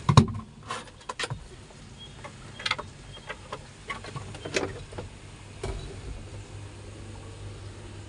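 Scattered clicks and light knocks of handling inside a parked car's cabin, the loudest near the start, over a faint steady low hum.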